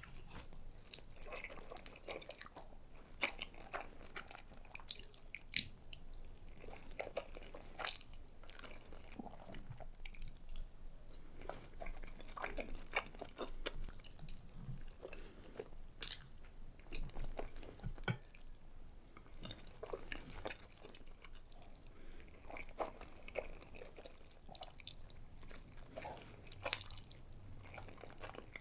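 Close-miked ASMR eating sounds: a person chewing soft, saucy pasta such as lasagna and creamy spaghetti. The chewing comes with many small wet clicks and smacks, scattered irregularly.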